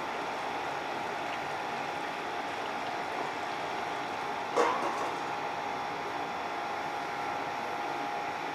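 A glass pot lid is set down on a stainless steel pot, with one sharp clink about halfway through and a smaller rattle just after, over a steady hiss.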